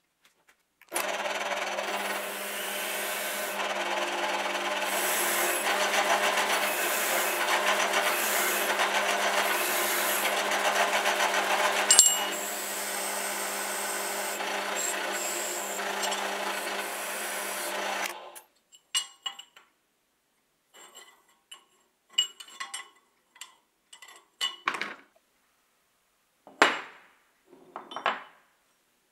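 Drill press spinning a wire cup brush against a metal flange washer, a steady scrubbing noise over the motor's hum, with one sharp clack midway; it stops about two-thirds of the way in. Then light clinks and knocks of metal parts being set down.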